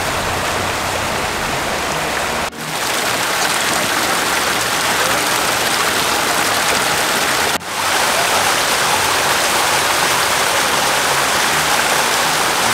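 Water cascading over granite rocks in a small mountain waterfall: a steady rush, broken for an instant twice.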